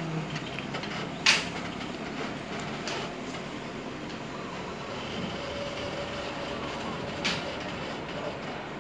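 Passenger train rolling slowly on rails, heard from an open carriage window: a steady rumble of wheels on track, broken by two sharp knocks about six seconds apart, the first the louder.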